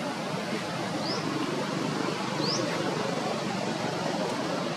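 Steady outdoor background murmur with two short, high, upward-sweeping chirps, one about a second in and one about two and a half seconds in.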